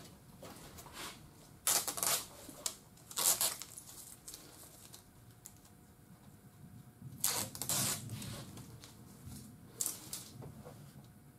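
Protective film liner being peeled off the double-sided tape beneath a plastic rear window louver: four short rustling pulls, the longest about seven seconds in.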